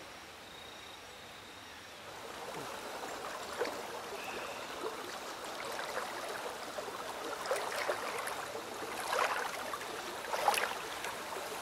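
Bare feet wading through a shallow stream, the water sloshing and splashing at each step over the murmur of flowing water. The splashing starts about two seconds in and grows louder toward the end.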